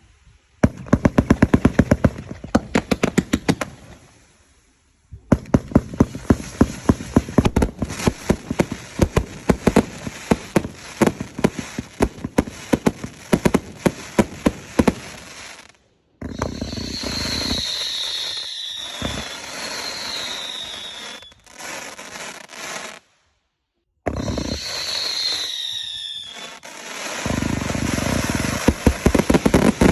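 Fireworks going off: rapid strings of sharp crackling bangs, then a hissing stretch in which whistling fireworks sound three times, each whistle falling in pitch, with more bangs near the end.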